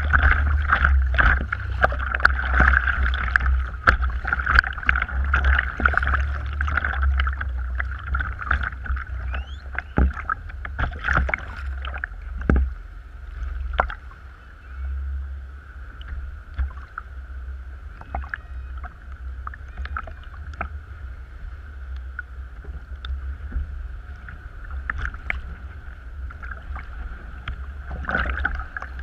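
A sea kayak being paddled through choppy water, heard from the bow deck: water sloshing and slapping against the hull with irregular splashes from the paddle blades over a steady low rumble. The splashing is louder and busier in the first half and calmer after.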